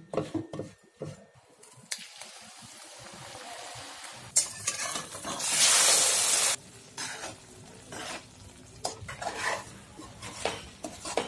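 Kitchen cooking sounds in quick cuts: a spoon scraping and stirring through thick dal in a pot, then loud sizzling of an omelette frying in a steel kadai, which stops abruptly after about two seconds. It is followed by a ladle scraping and clinking as curry is stirred in a pot.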